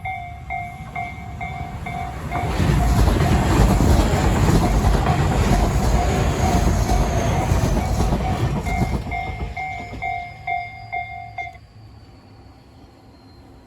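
Japanese level-crossing alarm of the Tojo type, its electronic bell dinging rapidly and evenly, while a Tobu Noda Line electric train passes over the crossing with loud wheel clatter from about two and a half seconds in to about nine seconds. The bell stops about two and a half seconds after the train has gone.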